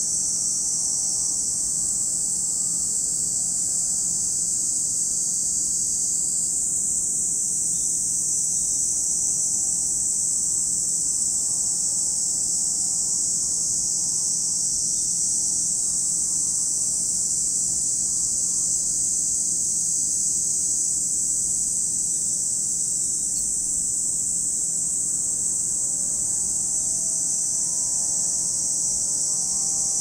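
Steady, high-pitched chorus of cicadas droning without a break. Under it, faint wavering tones rise and fall at the start and again near the end.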